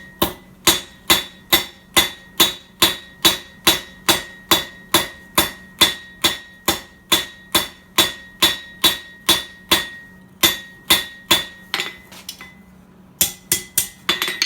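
Hand hammer striking hot steel on an anvil in a steady rhythm, a little over two blows a second, each with a bright ring, as the tip of the bar is spread out flat into a leaf. The blows pause briefly near the end, then a few quicker blows follow.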